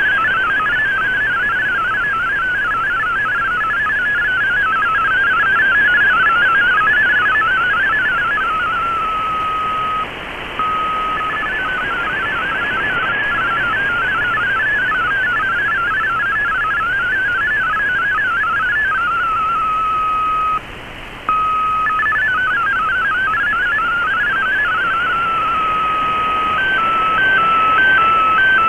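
Shortwave Radiogram's MFSK32 digital text signal from an Icom IC-R8600 receiver: a fast warbling of data tones over shortwave hiss. Twice the warbling gives way to a short steady tone and a brief dropout between messages. Near the end the tones switch to a regular two-tone stepping as an MFSK picture transmission begins.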